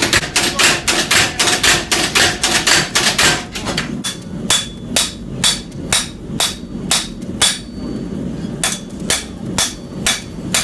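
Hammer blows on steel during forging. A quick run of strikes comes first, then slower, evenly spaced blows with a ringing tone, a short pause, and a few more blows.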